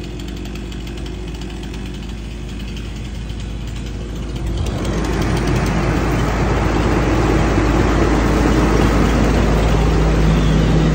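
An engine idling steadily. It gets louder about four to five seconds in, and a steady hum joins it near the end.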